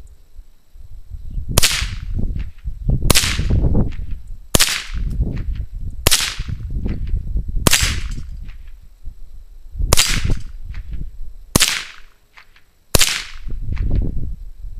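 .22 LR rifle firing eight shots at a steel plate rack, about one and a half seconds apart with a slightly longer pause after the fifth. Each shot knocks down one steel plate.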